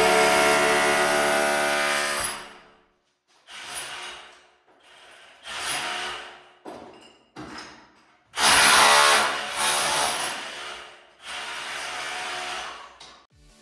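Background music fading out over the first couple of seconds, then a handheld power tool chipping off old kitchen tiles, run in bursts of one to three seconds with short pauses between them.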